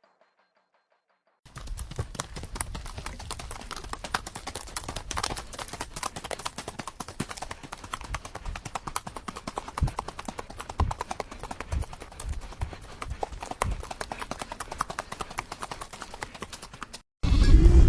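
Horse hoofbeats clip-clopping in a dense, irregular run of knocks, starting about a second and a half in and stopping abruptly shortly before the end.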